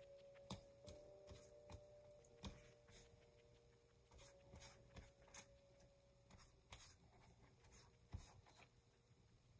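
Near silence, with faint scattered taps and light rubbing as a silicone pastry brush is dipped into a small bowl and brushed over raw pie dough.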